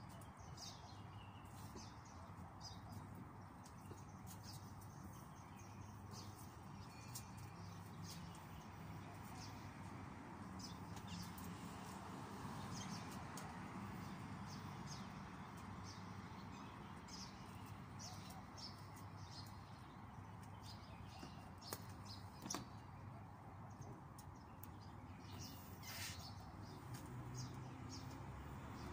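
Faint birds chirping and calling, many short high notes scattered throughout, over a steady low background hum, with two sharp clicks about 22 seconds in.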